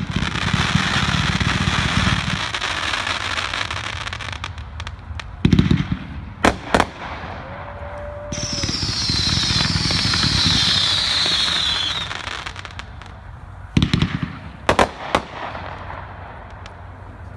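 Dominator 500-gram consumer firework cake firing: dense crackling for the first few seconds, then a series of sharp reports, a high whistle that falls in pitch over about three seconds, and a few more sharp reports near the end.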